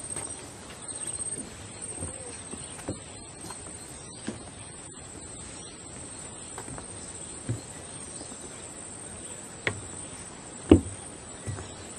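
Insects chirring steadily at a high pitch over faint outdoor background noise, with a few scattered knocks, the loudest near the end.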